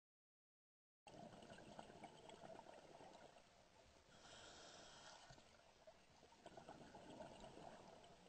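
Faint underwater sound of a scuba diver breathing through a regulator, with bubbling exhalations, beginning about a second in.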